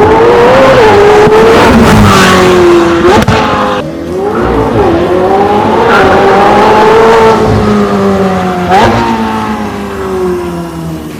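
McLaren 720S twin-turbo V8 through a catless, straight-piped exhaust, revving hard. Its pitch climbs, breaks with a sharp crack and a sudden drop about three seconds in and again near nine seconds, as at gear changes, then eases off near the end.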